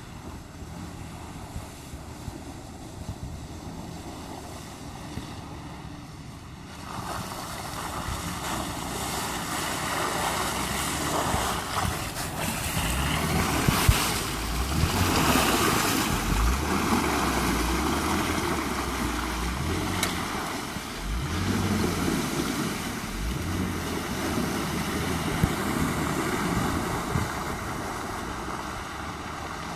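2014 Jeep Grand Cherokee WK2 driving through mud and standing water, its engine running and tyres churning and splashing. It gets louder about seven seconds in, is loudest as it passes close by around halfway, and keeps splashing as it pulls away.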